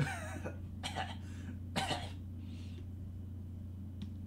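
A man coughing and clearing his throat in three short rough bursts about a second apart, then a soft breath. A light click near the end, over a steady low hum.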